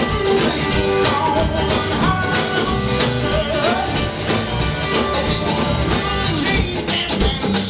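Live band playing a country-rock song: guitars over a steady drum beat, in an instrumental stretch between sung lines.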